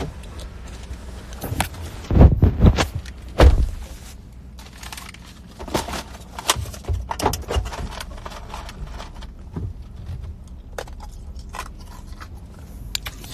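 Metal chain necklaces jangling and a phone being handled, with a cluster of loud bumps and rubs on the microphone a couple of seconds in, over a steady low car-cabin hum.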